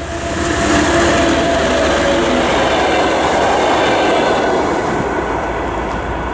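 TEP70BS diesel locomotive and its passenger cars passing close by, a loud steady rumble of engine and wheels on the rails that eases off slightly as the train moves away.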